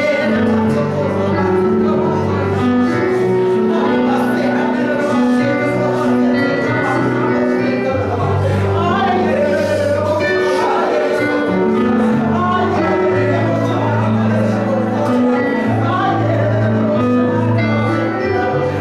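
Gospel music in a church: held keyboard chords over slow-changing bass notes, with voices singing over them.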